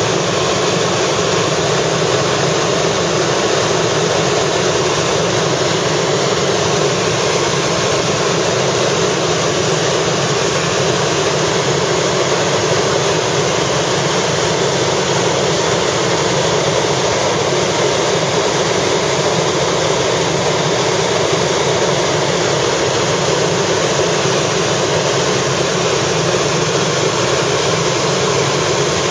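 Helicopter in flight: the engine and rotor make a loud, steady drone with no change in level.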